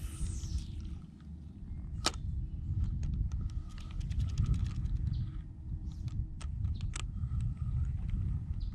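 Wind rumbling on the microphone while a spinning rod and reel are handled during a cast: a quick swish at the start, a sharp click about two seconds in, then light ticks and a faint whir from the reel as the line is worked.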